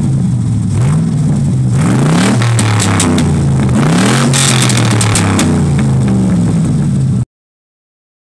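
Diesel pickup truck engine revving up and settling back twice, with scattered sharp cracks over the engine note; the sound cuts off abruptly about seven seconds in.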